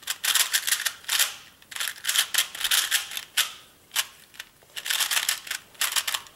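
A plastic 2x2 speed cube being turned fast by hand: bursts of rapid clicking and clacking turns, with short pauses between them.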